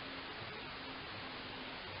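Steady radio static hiss from a NOAA Weather Radio receiver, with a faint low hum.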